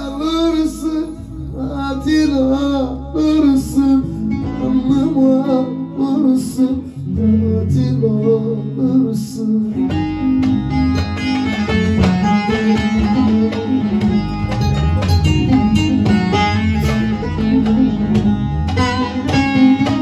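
Bağlama (long-necked Turkish saz) played with a plectrum under a male voice singing a Turkish folk song through a microphone, over a moving bass line. About halfway through the singing stops and the bağlama plays a fast run of plucked notes; the voice comes back near the end.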